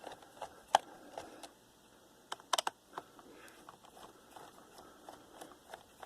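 Scattered light clicks and ticks of a screwdriver working the small heatsink screws on a laptop's underside, with a few sharper clicks about a second in and again around two and a half seconds in.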